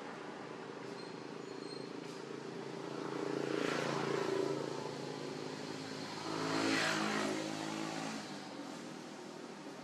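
Two motor vehicles driving past one after the other, each engine hum and road noise swelling and fading over a couple of seconds.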